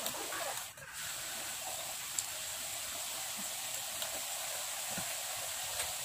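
Steady background hiss with no clear source. It dips briefly just under a second in, and there are a couple of faint ticks later on.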